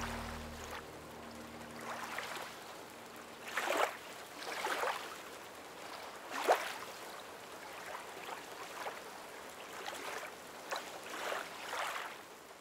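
Music fading out, then small waves lapping at a lakeshore: soft, irregular splashes every second or so over a quiet background.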